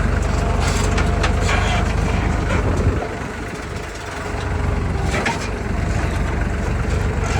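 Diesel engine of a JCB 3DX backhoe loader running under load, with scattered cracking and crunching of material being worked. The engine note drops about three seconds in and picks up again a second or so later.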